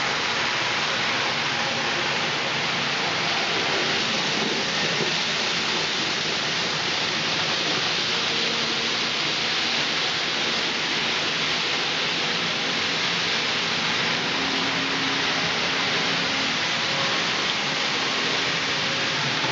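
Several N-scale model trains running on the layout: a steady, hiss-like whirr of small electric motors and metal wheels on the track, with a faint hum that comes and goes.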